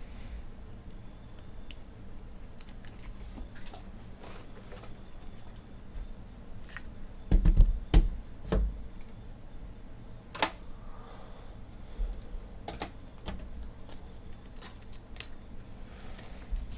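Light clicks and taps of trading cards being handled and set down on a tabletop, with a few louder low thumps about seven and a half seconds in.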